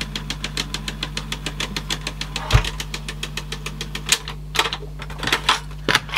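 Teac CX-210 cassette deck's tape transport clicking rapidly and evenly, about six clicks a second, over a steady hum: a fault noise it makes only with a tape loaded. About two and a half seconds in there is a single thump, then scattered, irregular clicks and knocks.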